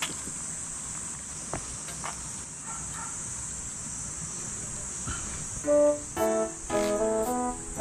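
A steady high-pitched drone of insects with a few faint clicks; then, a little under six seconds in, background piano-style keyboard music starts and becomes the loudest sound.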